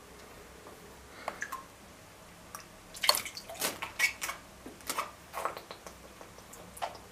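Irregular water drips and small plops in an aquarium, a few at first, then a quick run of them from about three seconds in, tapering off towards the end.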